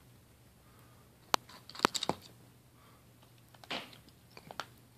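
A cat crunching dry kibble: a few sharp crunches between about one and two seconds in, then another short cluster of crunches a little before the end.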